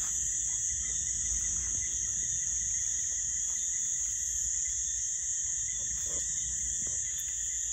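Steady chorus of night insects: a continuous high-pitched trill with fainter steady tones lower down, over a low rumble.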